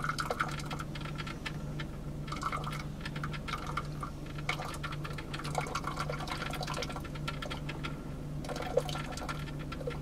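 Black & Decker single-serve drip coffee maker brewing: hot water gurgling and sputtering through and coffee trickling into the cup, with irregular crackles over a steady low hum.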